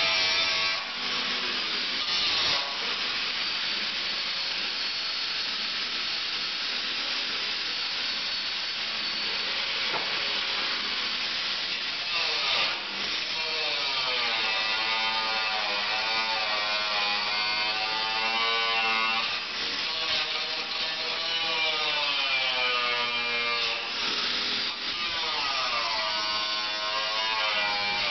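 Angle grinder cutting into the steel bodywork of a 1989 Isuzu Trooper, running steadily with a whine that wavers up and down as the disc bites. There are a few brief dips as the cut eases off.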